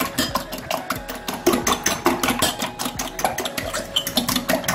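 Metal fork beating raw eggs in a glass bowl: rapid, even clicking of the fork against the glass, about eight strokes a second.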